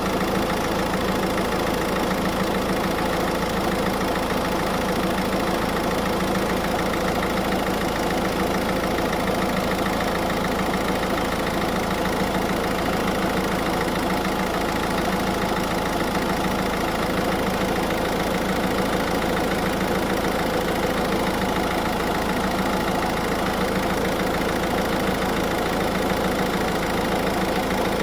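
Car engine idling steadily, an even hum that does not change.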